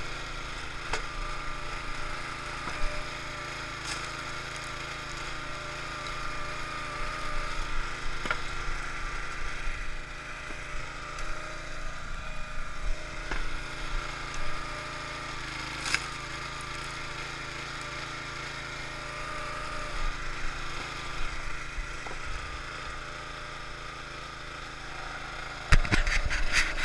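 Small gas engine of a Yard Machines hydraulic log splitter running steadily, with a few sharp cracks as oak splits on the beam. Near the end, loud knocking and rubbing right at the microphone as a hand handles the head-mounted camera.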